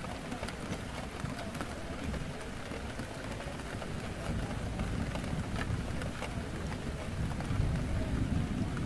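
Steady rain on a window, with scattered single drop ticks, over a low rumble of indistinct café chatter that swells slightly near the end.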